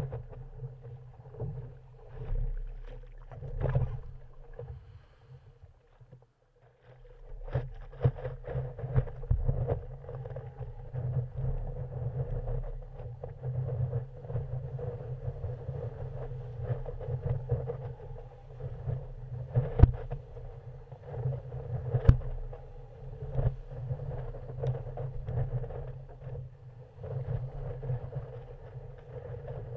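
Muffled rush and splash of breaking whitewater around a stand-up paddleboard riding a wave, picked up by a camera on the board's nose, with a brief lull and a few sharp knocks of water or the paddle against the board.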